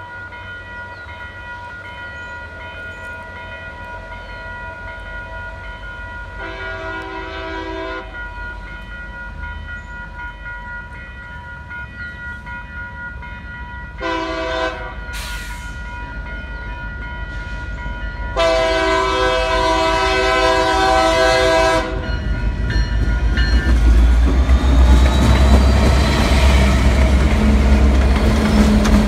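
BNSF GP60M-3 diesel locomotives running light, the lead unit sounding its horn in the grade-crossing pattern of long, long, short, long, over a steady ringing crossing bell. In the last several seconds the engines and wheels pass close by, their rumble and rail noise growing to the loudest point.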